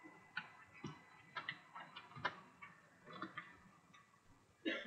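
Computer keyboard typing: a dozen or so soft, irregular keystroke clicks, the loudest near the end.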